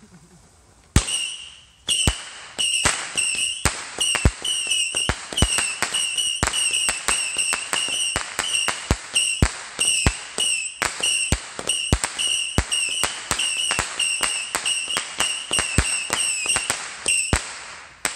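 Ground firework going off: a continuous shrill whistle punctuated by sharp cracks about every half second for some sixteen seconds, starting about a second in and stopping near the end.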